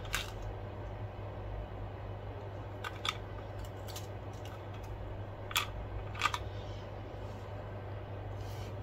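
A handful of light, sharp clicks and taps from hands handling small tools and parts on an opened iPad, over a steady low hum.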